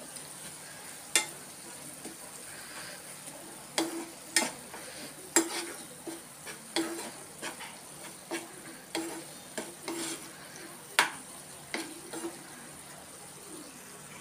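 A steel spoon stirring and scraping thick, simmering phool makhana keema curry in a nonstick frying pan: irregular sharp clicks of the spoon against the pan over a steady sizzle.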